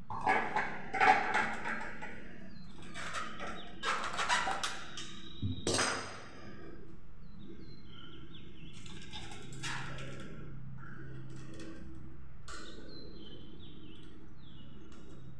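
Clicks, knocks and rattling of ceiling fan parts being handled and fitted together by hand, in a busy run over the first six seconds. After that it goes quieter, with faint high chirps and a low steady hum.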